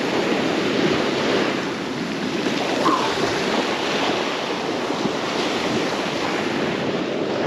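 Ocean surf washing onto the beach: a steady rush of breaking waves.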